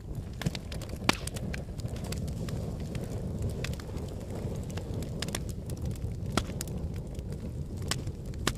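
Wood fire burning in a fireplace: a steady low rumble with irregular sharp crackles and pops, the loudest snap a little over a second in.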